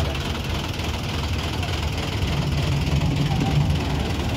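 Heavy diesel engine idling, a steady low drone that grows a little louder about halfway through.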